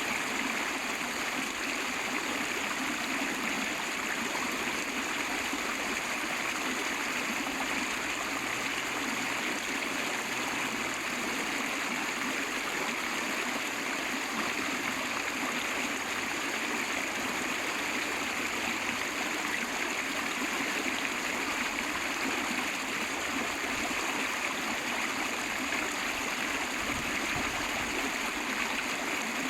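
River water rushing and flowing in a steady, unbroken stream.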